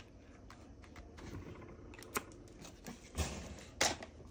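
Quiet tabletop handling of a paper card: light clicks and taps as a pick tool sets rhinestones onto the card, a brief paper rustle about three seconds in, and a sharp click near the end.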